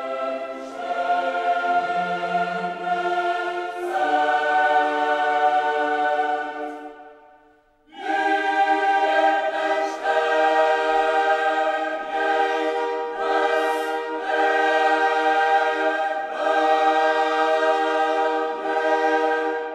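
Choral music: a choir singing long, held chords. It dies away about seven seconds in and comes back in full a second later.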